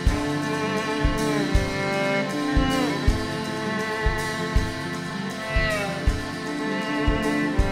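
Live band playing an instrumental passage of a song: a kick-drum beat in a repeating pattern under sustained chords, with a lead line that slides down in pitch several times.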